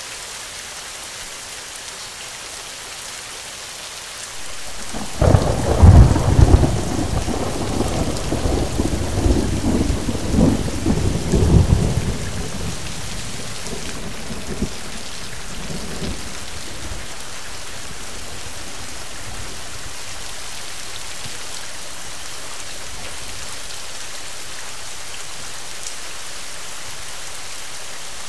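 Steady rain falling, with a peal of thunder about five seconds in: a sharp crack and a deep rumble that rolls for several seconds and fades out over about ten seconds, leaving the rain.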